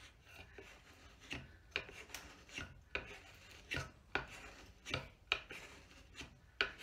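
Sharp spokeshave shaving a wooden axe handle in short scraping strokes, about two a second. Wood is being taken off to fit the handle to the axe head.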